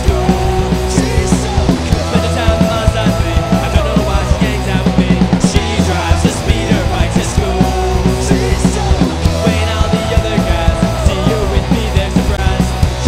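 Loud rock music with a steady drum beat, heavy bass and singing.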